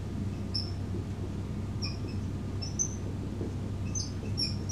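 Dry-erase marker squeaking on a whiteboard as a word is written: a string of short, high squeaks, one for each stroke, over a steady low room hum.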